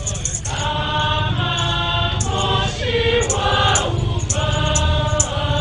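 Choir singing a church hymn, the voices holding long notes that step from one pitch to the next. A light percussion instrument marks the beat with short high strokes, about two a second, from about two seconds in.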